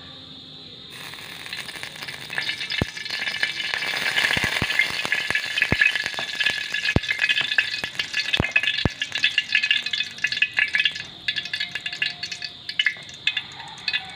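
Cooking oil poured into a hot wok, crackling and sizzling with several sharp pops. It builds up about a second in and thins out near the end.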